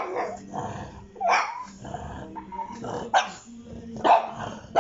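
Pug barking at a cat outside a glass door: about four short, sharp barks roughly a second apart.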